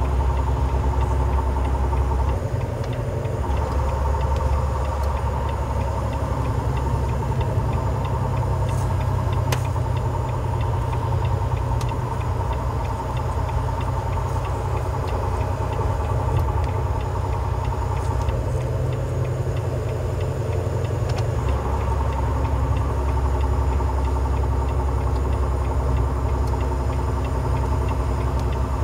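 Semi-truck's diesel engine running steadily, heard from inside the cab while the truck descends a steep grade without its brakes, the engine holding it back. The low drone shifts about two seconds in and shifts back about twenty-one seconds in.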